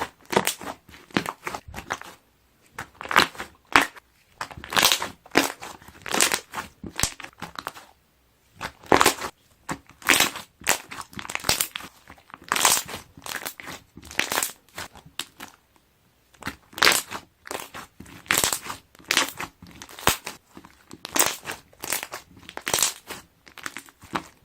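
Slime being pressed and squeezed by hand so that trapped air bubbles pop. Crackling runs of sharp pops, each about a second long, come one after another with short pauses between.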